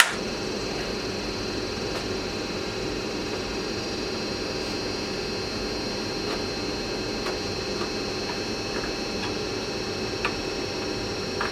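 Steady mechanical hum, like a fan, at an even level, with a few faint clicks and one sharper click about ten seconds in from a hand screwdriver working a stuck Phillips screw out of a headlight surround.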